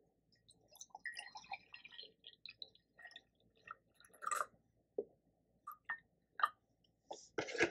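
Milk poured from a carton into a ceramic mug: soft, irregular glugs and splashes with light taps, a little louder about four seconds in. A louder rustle starts near the end.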